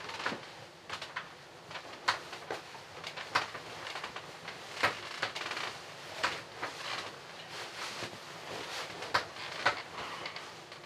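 Bedding rustling: a duvet and sheets swishing and crumpling in many short, irregular swishes as a person climbs into bed and pulls the covers over, settling down near the end.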